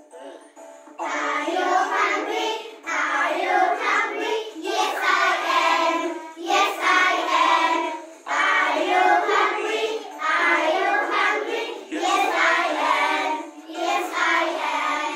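A group of young children singing a song together in unison, starting about a second in and going in short phrases with brief breaths between them.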